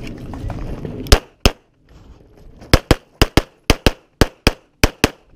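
Twelve pistol shots from a CZ Shadow 2 9mm with a red-dot sight: two about a second in, then after a short pause five quick pairs, each pair a fraction of a second apart, two shots on each target.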